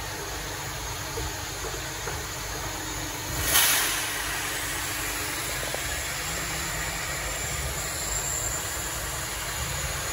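Steady machine noise in a workshop, with a brief loud hiss about three and a half seconds in.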